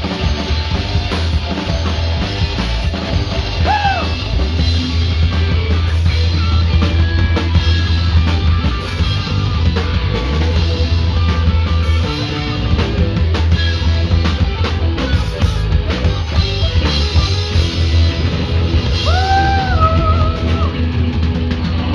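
Punk rock band playing loud with electric guitars, bass guitar and drum kit, with two short bending high notes rising over the band, one about four seconds in and one near the end.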